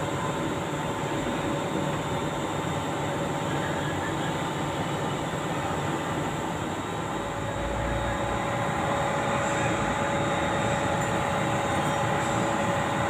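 Steady mechanical hum with a faint steady whine, growing slightly louder a little past halfway, with a low thump around the middle.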